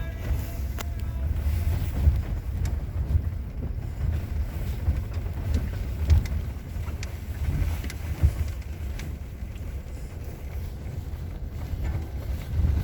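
Off-road 4x4 vehicle driving: a low, uneven rumble with wind buffeting the microphone.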